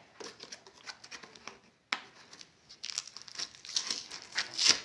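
Plastic and paper parcel packaging crinkling and tearing as it is worked open by hand, with a sharp snap about two seconds in and the loudest crinkling near the end.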